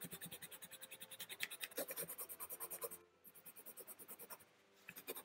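Pencil scratching on paper in quick short strokes, several a second, as it traces over a paper stencil to transfer its outline. The strokes break off briefly about three seconds in and again near the end.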